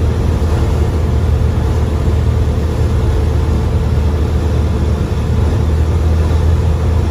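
Cessna 172's piston engine and propeller heard from inside the cabin, a steady low drone with engine power pulled back for the landing flare.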